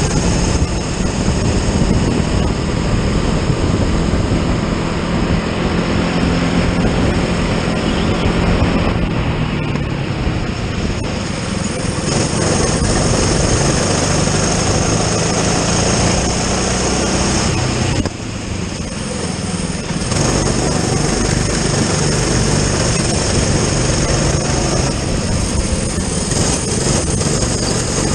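Racing kart's engine running hard, heard from onboard the kart, under a heavy even rush of noise. The sound drops for about two seconds roughly eighteen seconds in, then comes back to full level.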